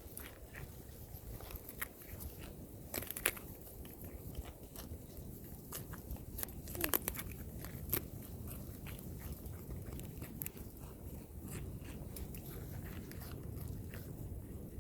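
An animal biting and chewing crunchy food close to the microphone: a long string of irregular sharp crunches over a low rumble.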